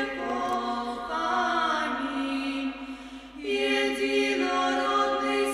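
Background music: voices singing slow, long held chords, the harmony shifting about three and a half seconds in.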